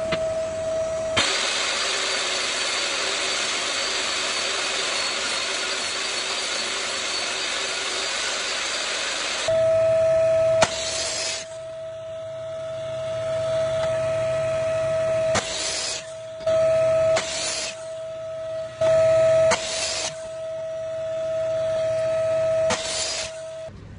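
Woodshop power saws over a steady high whine: a saw runs with an even loud noise for about eight seconds, then a power miter saw makes a series of short chop cuts through pine strips, about five brief bursts in the second half.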